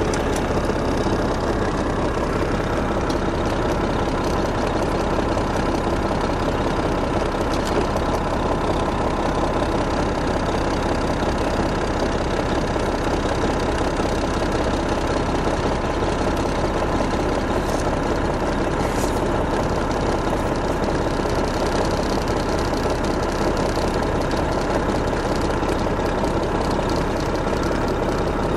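Detroit Diesel Series 60 EGR inline-six diesel of an MCI D4500 coach idling steadily.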